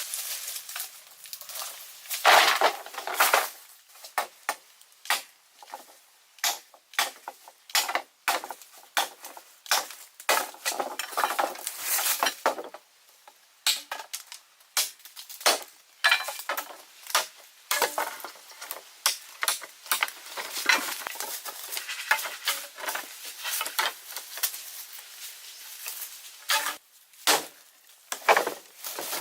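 Irregular clicks, knocks and scrapes of hard material being handled and worked by hand, with a few louder strikes about two seconds in and again near the end.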